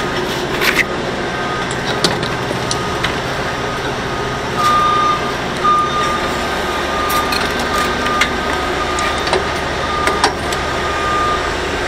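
Steady mechanical rumble of running machinery, with a thin high tone held through the second half and a few light clicks and knocks.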